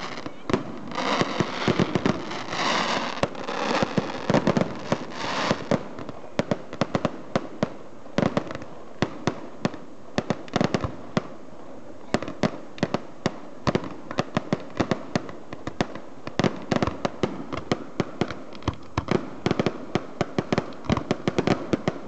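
Fireworks display: aerial shells going off in rapid, irregular succession, several sharp bangs a second, with crackling bursts in the first few seconds.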